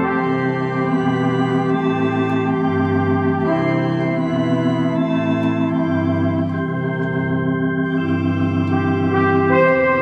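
Two-manual electronic home organ playing sustained chords with a wavering vibrato, over a bass line that moves to a new note about every half second.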